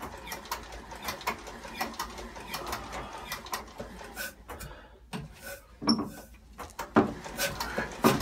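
Old Volvo Penta marine engine being turned over by hand crank without firing: a steady mechanical clicking about three times a second. It pauses about five seconds in, then comes back as heavier knocks.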